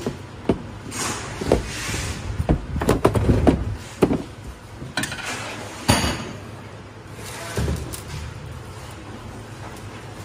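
Irregular knocks, taps and rattles of a metal tube frame against a plastic car body as it is handled, with brief scraping in between; the sharpest knock comes about six seconds in.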